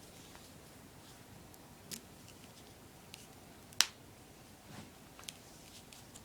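A small elastic rubber band being wrapped around the end of a braid: faint handling with a few sharp snaps, the loudest near the middle.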